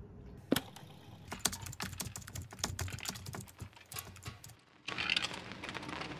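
Keyboard typing: a quick, irregular run of sharp clicks, with a short break about four and a half seconds in, then faint hiss and a few more clicks, as of text being typed out.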